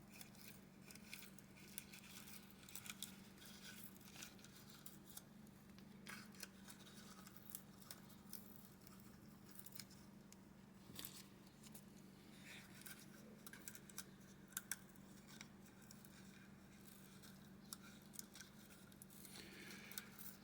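Faint, scattered small clicks and rustles of hands working paper and laminate sheet over a steady low hum.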